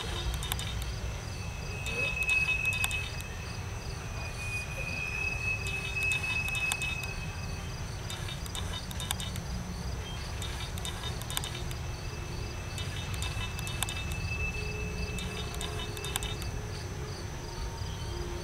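Freight train of coal hopper cars rolling past: a steady low rumble of wheels on rail, with insects chirping in a rapid pulsing pattern over it.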